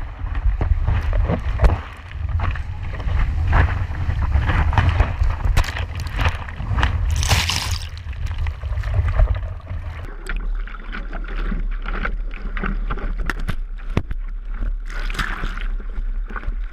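Surf churning and splashing around a camera in the water, with a heavy low rumble of water and wind buffeting the microphone. About ten seconds in the rumble drops away, leaving lighter splashes and sloshing.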